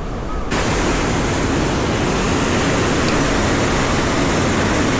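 Rushing water of a mountain stream, a steady loud hiss that cuts in suddenly about half a second in.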